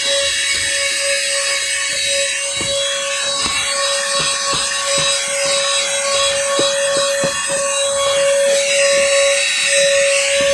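Cordless handheld car vacuum cleaner running with a steady whine, with scattered clicks and rattles through it.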